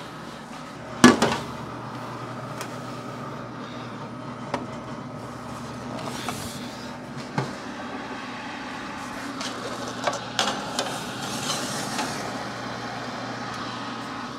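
Countertop oven running with a steady hum, a loud clack about a second in, then scattered knocks and clinks as its door is opened and a metal sheet pan with a lidded enameled cast-iron pot is set onto the rack.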